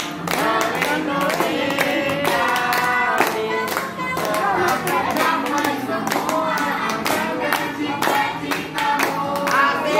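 A group singing a birthday song, with hands clapping along in time.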